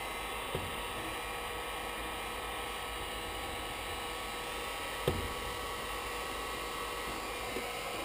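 Chicago Electric heat gun running steadily on low speed, blowing hot air onto a wire splice to shrink the tubing over it. A few short clicks, the sharpest about five seconds in.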